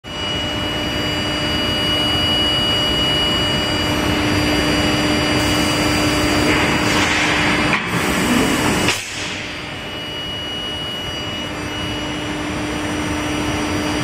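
Steady din of a long-bar induction hardening and tempering line running, with a constant low hum and a thin, steady high tone over machinery noise. The sound briefly cuts out near eight seconds and drops a little about nine seconds in.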